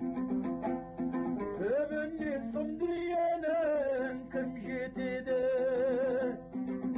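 Kazakh song with a dombra strummed in a steady repeating pattern under a male voice singing long, wavering held notes that glide up about two and three seconds in.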